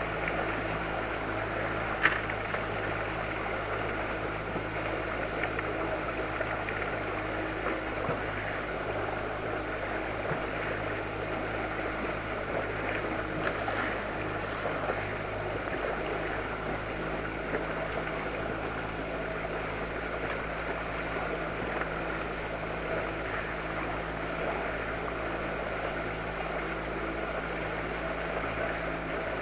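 Outboard motor of an inflatable boat running steadily at slow trolling speed, a constant low hum, with water rushing along the hull. One sharp knock about two seconds in.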